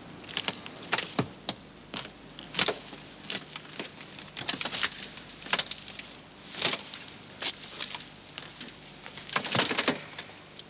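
Rusted steel window frame and door of a car creaking and cracking as they are wrenched apart by hand: irregular sharp cracks and crunches, with the loudest cluster near the end as the frame gives way. Corrosion has weakened the steel.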